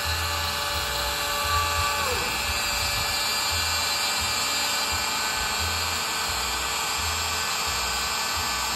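Bosch Colt trim router on a desktop CNC machine, spinning at high speed as its bit cuts a shallow lettering pattern in a wooden board. For about the first two seconds a steady whine from the machine's drive glides up, holds and glides away as the head moves.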